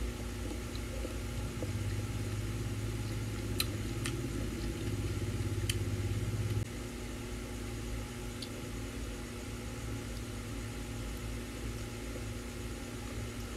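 Electric stand fan running with a steady low hum that drops a little about halfway through, with a few faint clicks.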